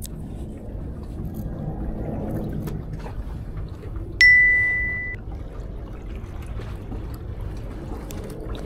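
A single bright ding sound effect about four seconds in, ringing for about a second as it fades, over a steady wash of sea water against the concrete tetrapod blocks.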